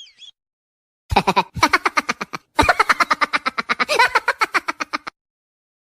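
Rapid staccato laughter sound effect: three quick runs of 'ha-ha-ha' pulses, about eight to ten a second, starting about a second in and stopping about a second before the end.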